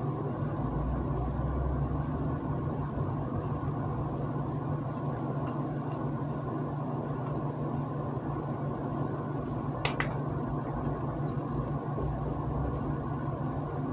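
Steady low hum and hiss of room background noise, with a single short click about ten seconds in.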